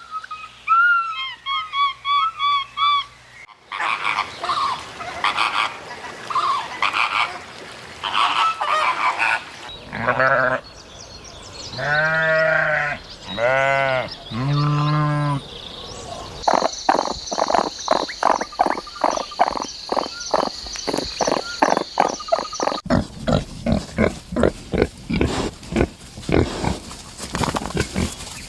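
A run of different animal calls one after another: short high chirps, then pulsed calls, three long arching calls, and finally a long, fast series of croaking pulses.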